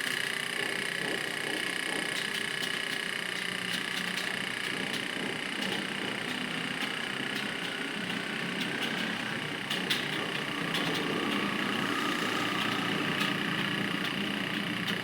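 Computer keyboard being typed on: irregular light key clicks, several a second in places, over a steady background hum.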